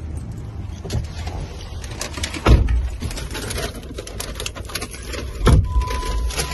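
A person climbing into a car with a phone in hand: rustling and handling noise, two heavy thumps about two and a half and five and a half seconds in, and a steady high electronic tone starting just after the second thump, like a car's warning chime.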